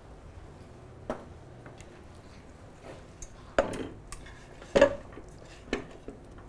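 A metal cooking pot and utensils handled on a gas range, giving a handful of separate clanks and knocks. The loudest comes about three and a half seconds in and rings on briefly.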